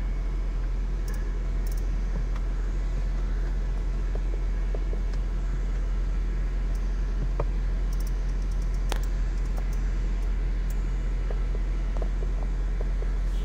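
Steady low hum of a Mercedes-Benz C-Class idling, heard from inside the cabin, with a few faint clicks.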